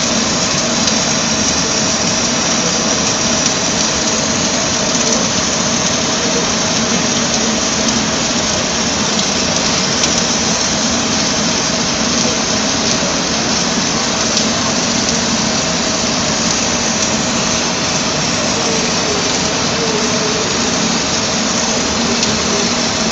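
Welding arc at the torch of an automated welding carriage laying a continuous weld along steel plate: a loud, steady hiss with a faint hum beneath it.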